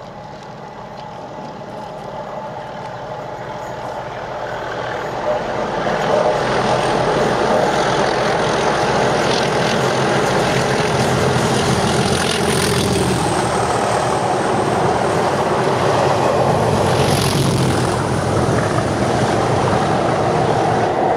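Two Class 37 diesel locomotives approaching, their English Electric V12 engines getting louder over the first six seconds and then running as a steady loud drone.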